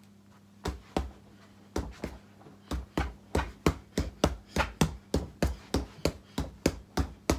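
A rapid flurry of about twenty strikes thudding into a free-standing punch bag. They come in pairs at first, then quicken to an even run of about three a second.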